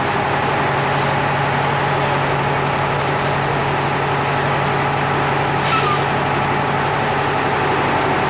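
Heavy military truck's diesel engine running as the truck creeps forward, with two short air-brake hisses, about a second in and again near six seconds.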